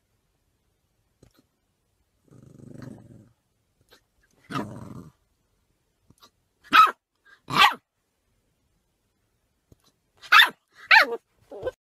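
A puppy growling low, then yapping in short, sharp, high barks: two together about halfway through and three more near the end. It is angry at its own hiccups.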